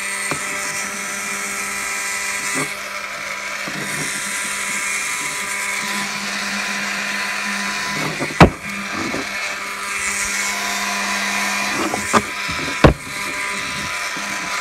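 Electric heat gun running steadily, a hum under a rush of hot air, as it shrinks plastic wrap around a stack of postcards. Sharp knocks, the loudest about halfway through and another near the end, as the wrapped block is handled on the wooden table.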